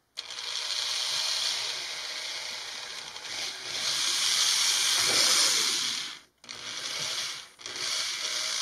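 Cordless drill boring a pilot hole, running with a steady hissing whir for about six seconds, then stopping briefly twice for two shorter runs near the end.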